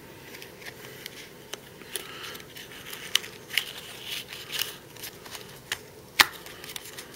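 A disposable lens-cleaner trial pack being handled and opened: scattered crinkles and sharp clicks of the packaging, the loudest a crisp snap about six seconds in.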